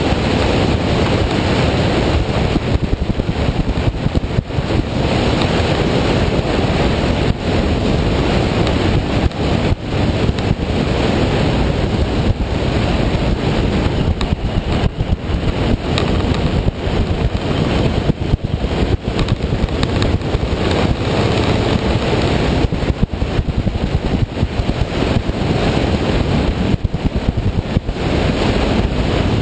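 Loud, constant wind buffeting on the microphone of a camera on a moving motorcycle, with the vehicle running underneath the noise.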